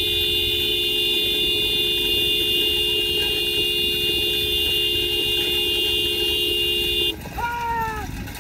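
A vehicle horn held down in one long, steady two-tone blast that cuts off suddenly about seven seconds in. A short falling shout follows near the end.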